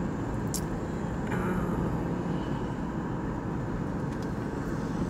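Steady low rumble of car cabin noise, with a short click about half a second in.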